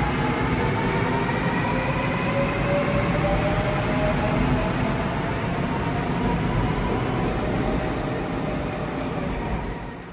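Seoul Subway Line 4 electric train pulling out of the station: its traction motors give a whine of several tones climbing steadily in pitch as it picks up speed, over the rumble of wheels on rail. The sound drops off sharply near the end.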